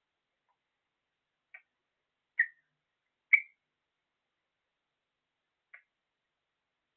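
A parrot giving four brief, sharp chirps, the middle two louder and about a second apart, with quiet between them.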